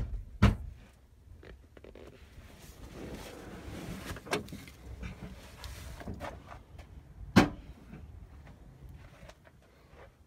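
A few sharp knocks and thumps inside a stripped vehicle's cab over a low rumble. The loudest knock comes about seven and a half seconds in.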